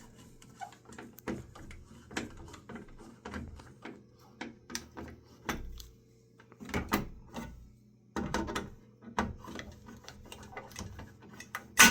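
Irregular clicks and knocks of a fire alarm pull station being handled, opened and reset. The clicks are scattered and short, with louder clusters in the second half, over a faint steady low hum.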